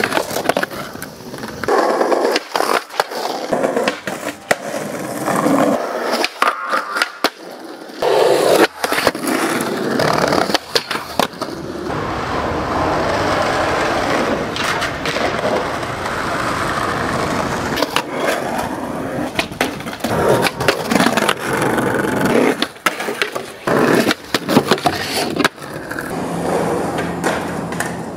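Skateboard riding: urethane wheels rolling over pavement and concrete, broken by sharp clacks of tail pops, board slaps and landings. At the start the board scrapes along a wooden log.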